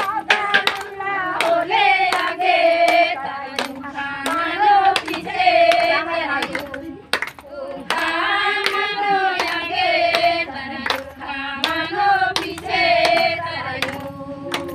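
A group of women singing a song together, with steady rhythmic hand clapping.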